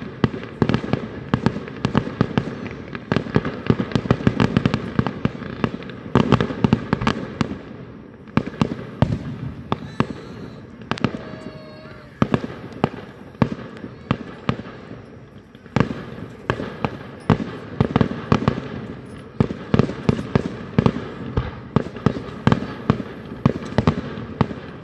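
Fireworks display: a dense, continuous barrage of bangs and crackles from aerial shells bursting, thinning briefly about 14 seconds in before picking up again.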